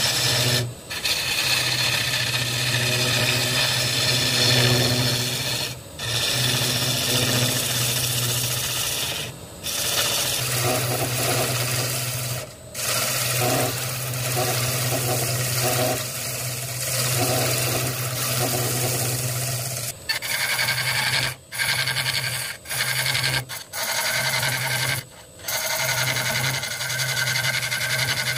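Wood lathe spinning a Kaizuka juniper vase blank while a hollowing tool cuts out the inside: a steady scraping hiss of the cut over the lathe's low hum, broken by several brief gaps, most of them near the end.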